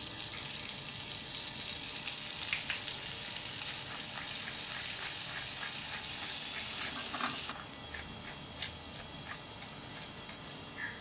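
Butter and oil sizzling in a kadhai as kalonji (nigella) seeds go in and are stirred with a spatula, a steady hiss with a few light clicks. The sizzle quietens about seven and a half seconds in.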